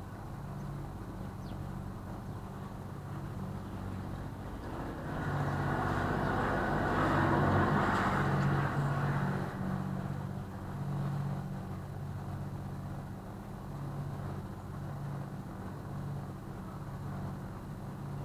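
A small canal cruiser's engine running steadily at cruising speed, a low even hum. A broader rushing noise swells over it for a few seconds in the middle, then fades back.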